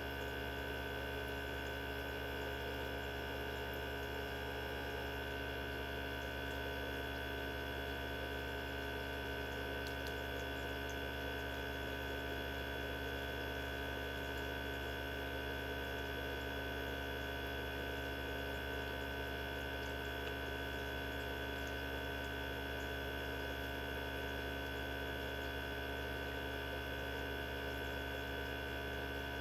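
Mini benchtop centrifuge running at speed with its lid closed, spinning small tubes of cow blood to separate them into their components. A steady motor hum and whine with several fixed tones that does not change.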